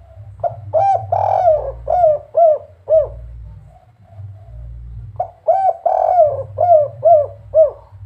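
Spotted dove (derkuku) singing its 'kuk 3' coo twice: each phrase opens with short notes and a longer drawn coo, then ends in three short clipped 'kuk' notes.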